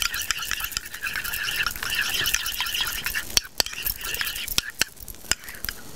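A small utensil stirring and scraping a thick sour cream sauce around a ceramic bowl. After about three and a half seconds it gives way to a few sharp clicks of the utensil against the bowl.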